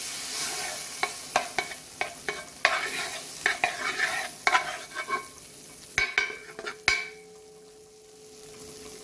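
Butter sizzling as it melts in a metal pot, with a wooden spoon scraping and knocking against the pot as it stirs. The stirring stops about seven seconds in, leaving a fainter sizzle.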